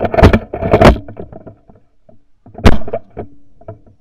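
Mechanical noise from a pump-action .410 shotgun, heard through a camera mounted on the gun: two heavy clacks close together, then one very short, sharp snap, the loudest, about two and a half seconds in. The shooter says the gun didn't go off because he hadn't cocked it.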